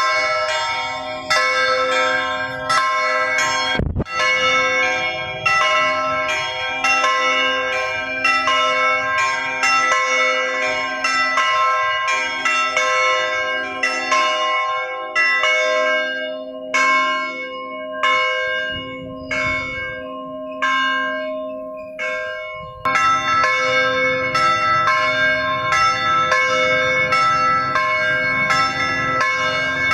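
Church bells ringing, a steady run of overlapping strikes that each ring on and fade, thinning out in the middle and fuller again near the end. A brief thump about four seconds in.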